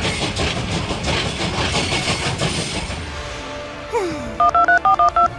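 Music over the clatter of a train rolling on its rails. About four seconds in there is a falling swoop, then a quick, loud run of touch-tone phone keypad beeps as a number is dialled.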